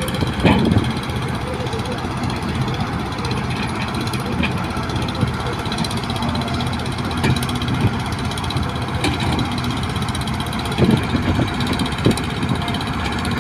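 Diesel engine of a hydraulic excavator running steadily, with a few short knocks.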